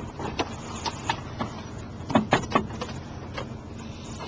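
Car engine running with a steady low rumble, broken by a few short, sharp clicks or taps, several of them about two seconds in.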